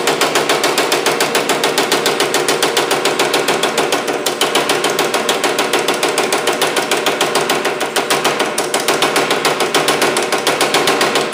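Power hammer running, hammering rapidly and evenly on an aluminum panel between a linear stretch die below and a flat top die, stretching the metal to raise an area of the panel. The blows stop at the very end.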